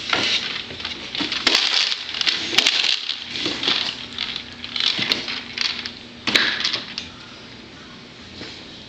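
Rattling and clattering of a child's plastic toy, in irregular bursts with sharp clicks, stopping about seven seconds in.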